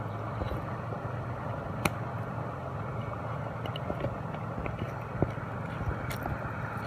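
Metal fishing pliers clicking against a hard-bait lure and its hooks as the lure is worked out of a small fish's mouth: two sharp clicks about three seconds apart and a few fainter ticks, over a steady low rumble.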